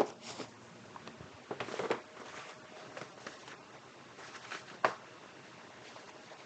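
Small cardboard boxes being handled and set down on a wooden workbench: scattered light taps, scrapes and rustles. The loudest is a sharp knock right at the start.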